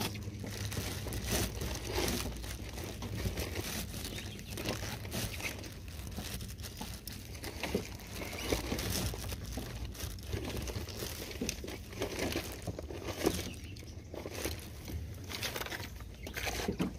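Plastic bag crinkling and rustling in irregular handling noises as hands pull bulbs and strands from a split jackfruit lying on it, over a steady low hum.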